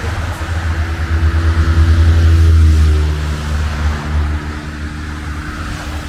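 Road traffic passing close by: cars and vans driving past, their engine and tyre noise swelling to a peak about two and a half seconds in and then easing off.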